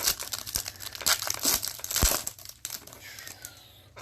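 Foil wrapper of a Bowman Chrome baseball card pack being torn open and crinkled, loudest around one and two seconds in, then quieter.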